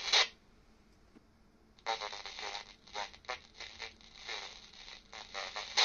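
Quansheng UV-K5 handheld receiving an AM airband voice transmission through its own speaker, garbled and broken: very poor audio quality, almost unusable. A loud voice cuts off just after the start, and after a pause of over a second a fainter voice comes back in broken bursts.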